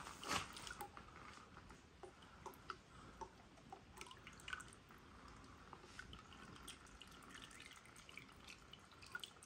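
Engine oil dripping from a VR6 engine block into a bucket: faint, irregular drips, one louder just after the start.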